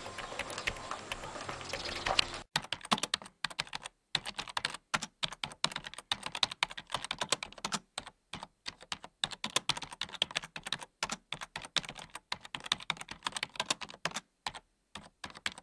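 Typing sound effect: quick, irregular runs of key clicks with brief pauses, setting in about two and a half seconds in after a short stretch of outdoor noise.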